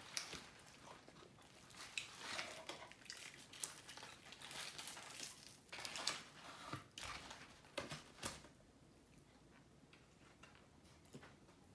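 Crispy skin of a whole deep-fried chicken crackling as it is torn apart by hand, with the paper liner of the box crinkling. The crackles come thick for about eight seconds, then thin out.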